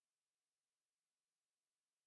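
Near silence: the sound track is essentially empty.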